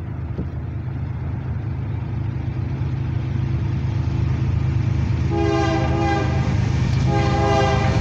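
Diesel freight locomotives approaching, their engine rumble growing steadily louder. About five seconds in, the lead locomotive sounds its air horn in two blasts of about a second each, close together.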